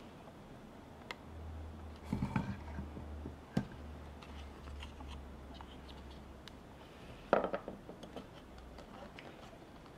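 Hand carving of a wooden skull: a blade scraping and clicking against the wood, with scattered light clicks and two louder bursts of scraping, about two seconds in and past seven seconds. A low steady hum lies underneath for most of it.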